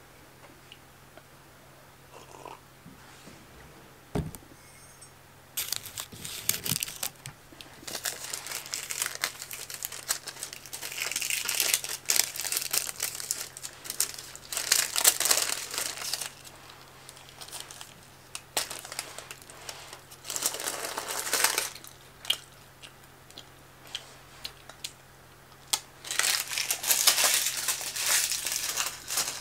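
Baking paper crinkling in repeated bursts as a rolled fruit leather is unwrapped and handled, starting about six seconds in and coming and going.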